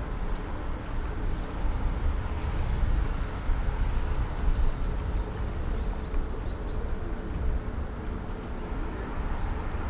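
Distant drone of a high-speed passenger ferry's engines as it comes into harbour, over an uneven low rumble. Faint short high chirps sound now and then.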